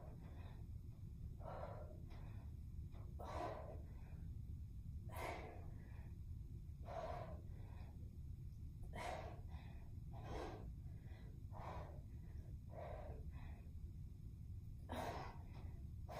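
A woman breathing hard in time with kettlebell swings: short, forceful breaths, about one every one and a half to two seconds.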